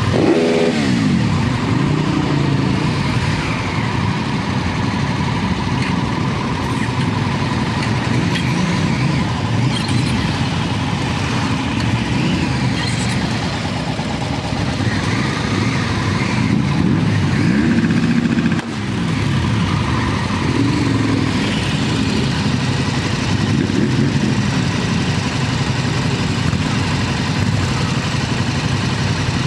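Motorcycle engines running at low speed in a slow-moving group. The engine note rises and falls with the throttle, dropping away just after the start and climbing again around eighteen seconds in before cutting off sharply.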